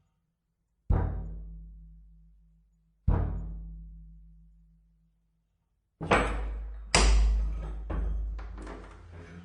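Heavy steel shelter door's lock mechanism clanking: two single deep booms that ring out for a couple of seconds each, then a quick run of several metallic clanks and rattles from about six seconds in, all with a long, echoing decay.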